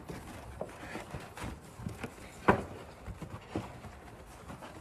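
Paper gift bag being handled and rummaged: irregular rustling and light taps, with one sharp click about halfway through.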